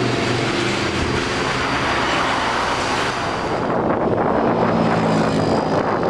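Steady road traffic noise. About three and a half seconds in it gives way to wind on the microphone, with motor vehicles passing, while riding along a highway.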